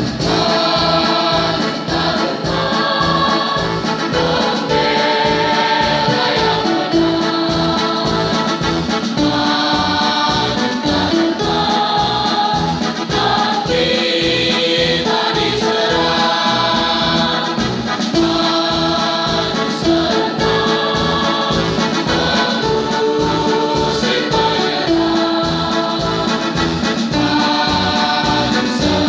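Large school choir singing an Indonesian patriotic song in sustained notes, over an electronic keyboard accompaniment with a steady beat.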